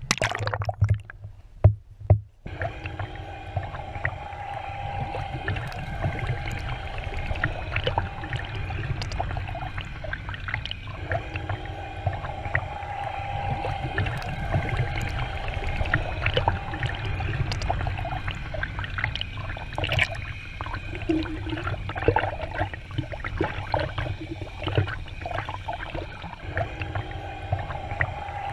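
Splashes as the camera goes under in the first couple of seconds, then underwater stream sound: a steady low rumble of flowing water with scattered clicks and ticks, and a mid-pitched hum that comes and goes.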